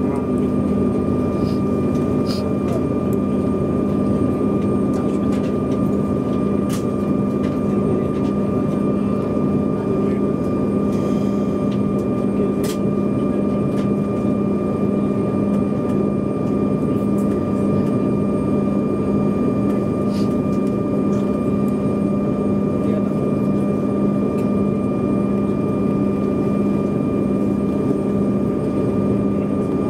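Embraer E190's GE CF34 turbofan engines idling, heard inside the cabin from a seat over the wing: a steady hum with a constant whine on top. A few faint ticks sound now and then.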